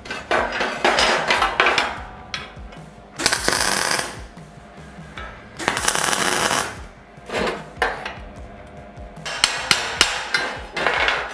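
MIG welder tack-welding steel angle brackets: a series of short, crackling arc bursts about half a second to two seconds long, with pauses between them.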